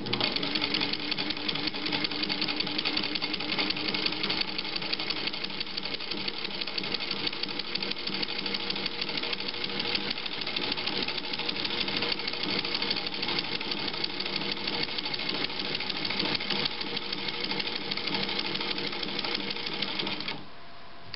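Singer 15-91 sewing machine, driven by its gear-driven potted motor, running steadily at speed as it stitches a zigzag through one layer of fabric. The Singer Automatic ZigZag attachment's arm rides on the needle clamp, ratcheting its cam wheel round with each stroke. The machine stops about twenty seconds in.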